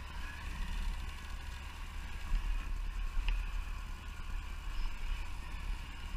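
Motorcycle moving slowly, its engine running with a steady low rumble, heard through a helmet-mounted action camera.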